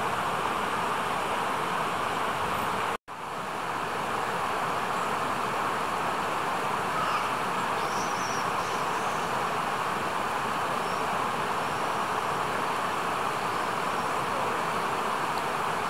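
Steady rushing of a mountain river running through the valley, broken by a split-second gap about three seconds in.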